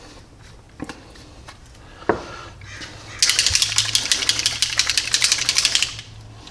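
DuraCoat paint and hardener being mixed in a small container: a fast, even rattle of about ten clicks a second, lasting nearly three seconds from about three seconds in, after a couple of light knocks.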